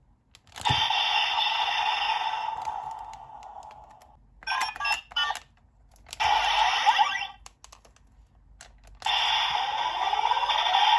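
Electronic sound effects from a Kamen Rider Ex-Aid Gashacon Key Slasher toy sword in blade mode, played through its small built-in speaker, with clicks of its buttons between them. One effect starts about a second in and fades over about three seconds, shorter ones follow around the middle, and another with a rising tone starts near the end.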